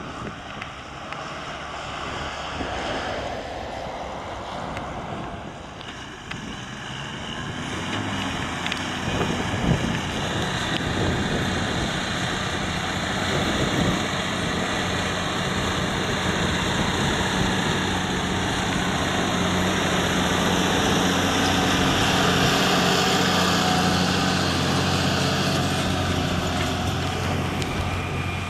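New Holland T7.235 tractor's six-cylinder diesel engine working steadily under load pulling a plough, growing louder as it comes closer and easing slightly near the end, over a steady hiss of road traffic and wind.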